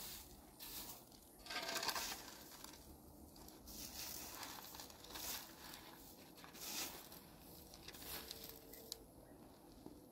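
Short straw hand broom sweeping dust across a concrete floor, a dry swish with each stroke, roughly one stroke a second and loudest just before two seconds in.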